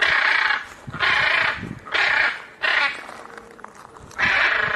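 Macaw squawking: five harsh, loud squawks of about half a second each, roughly a second apart.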